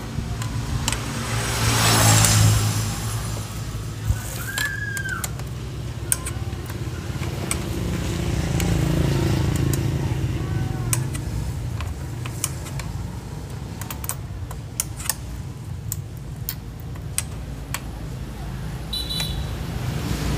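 Scattered light clicks and clinks of metal parts and hex keys as a brush cutter's handlebar clamp is fitted and bolted on, over a steady low background hum, with a louder whoosh about two seconds in.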